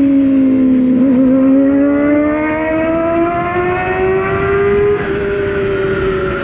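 Motorcycle engine running under way, its pitch rising steadily for about four seconds as it accelerates, then easing off slightly near the end, over a low rushing noise.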